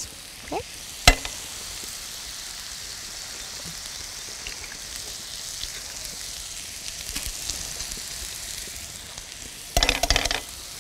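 Chopped onions and smoked ham sizzling steadily in hot olive oil in a frying pan. A sharp tap comes about a second in and a louder patch of crackling near the end, as eggs are cracked into the pan.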